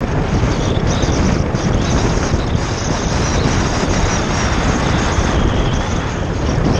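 Wind buffeting a bike-mounted camera's microphone, mixed with the steady rumble and rattle of a mountain bike rolling over a dirt trail.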